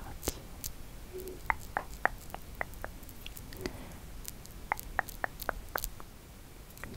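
Close-miked ASMR mouth sounds: soft, irregular wet clicks and smacks of the lips and tongue, about two a second, over a faint steady low background.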